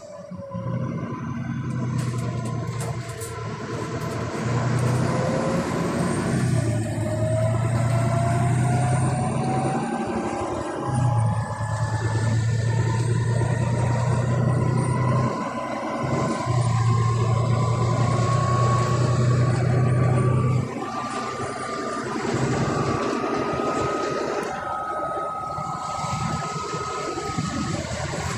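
Volvo B9TL double-decker bus heard from the lower deck while under way: the six-cylinder diesel engine runs with a strong low drone, and a whine climbs steadily in pitch as the bus gathers speed. The engine drone drops away briefly a few times.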